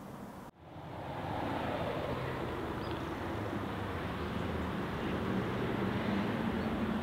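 A steady distant rumble of engine noise that fades in after a brief dropout about half a second in.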